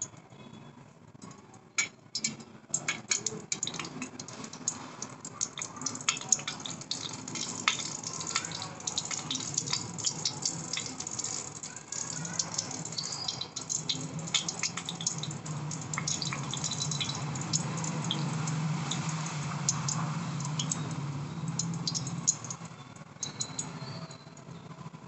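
A small metal tin heated over a candle flame, giving off a dense run of irregular crackling and ticking clicks, over a low steady hum.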